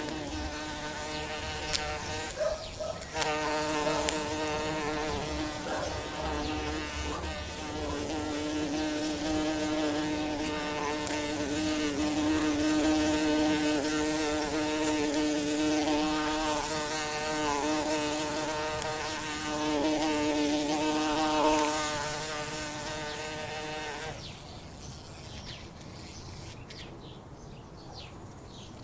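A bee buzzing in flight: a steady, droning hum whose pitch wavers slightly. About twenty-four seconds in it drops and becomes fainter.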